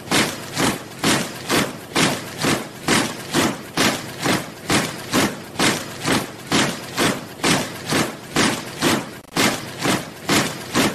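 A body of soldiers marching in step, their boots striking the ground together in a steady, even cadence of a little over two steps a second.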